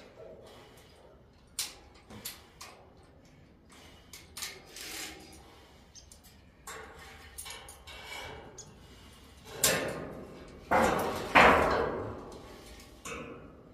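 Intermittent metal clanks and knocks from work on a steel pallet-rack frame. A few louder, rattling clanks come after about ten seconds.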